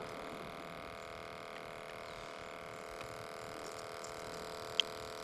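Faint steady hum made of several fixed tones, with one short sharp click near the end.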